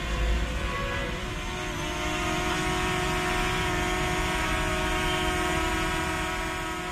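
DJI Mini 2 drone hovering close by, its propellers giving a steady high-pitched buzzing whine. Wind rumbles on the microphone in the first second.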